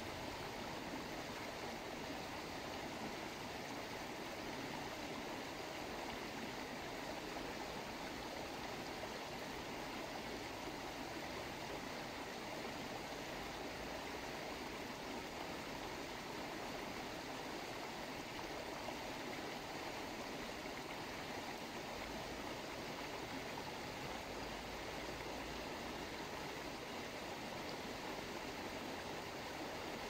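Running water, like a stream, making a steady, even rush with no breaks or changes.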